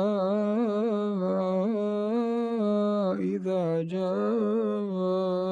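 A man's unaccompanied Quran recitation in melodic tajweed style, holding a long vowel with wavering ornaments. It breaks off briefly about three seconds in, then goes on into another long held note.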